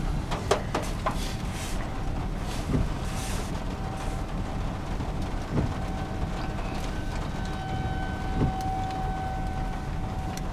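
Outdoor tornado warning siren sounding a steady, distant tone, loudest near the end, over a low rumble of wind and vehicle noise, with a few brief knocks.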